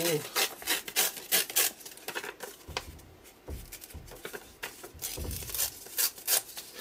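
Paper rustling and crinkling as torn scraps are handled: runs of quick crackles in the first second and a half and again from about five seconds in, quieter between.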